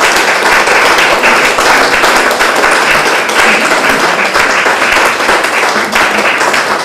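Small audience applauding, many hands clapping steadily at the end of a reading.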